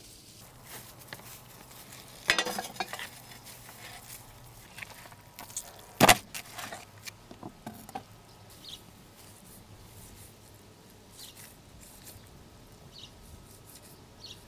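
Cooking-prep handling sounds: a short clatter of utensils and dishware a little over two seconds in, a sharp knock at about six seconds, then scattered light clicks and taps.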